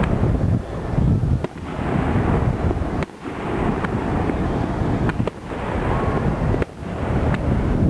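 Aerial firework shells bursting, several sharp bangs about one every second or two, over heavy wind noise on the microphone.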